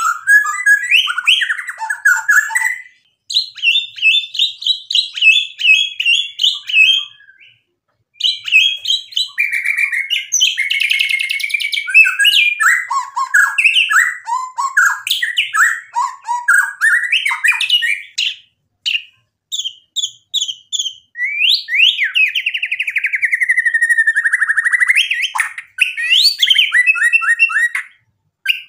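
Male white-rumped shama singing a long, varied song of fast trills, chattering runs and clear whistled notes, broken by a few short pauses. About three-quarters of the way through comes a long whistled phrase that dips and then rises again.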